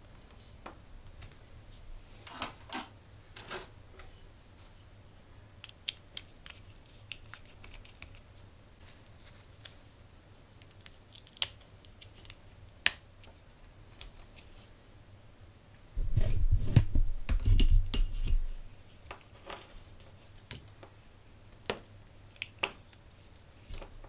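Small metal clicks and scrapes as the parts of a metal TV coax plug are fitted and clamped onto coax cable by hand, with a louder burst of handling noise lasting about two seconds, two-thirds of the way through.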